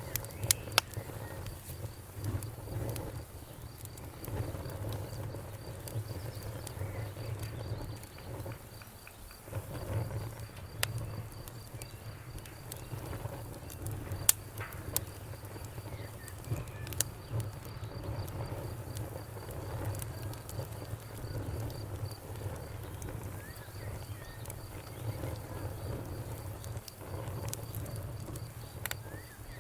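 Campfire crackling, with scattered sharp pops over a low steady hum, while crickets chirp in an even pulsing trill in the background.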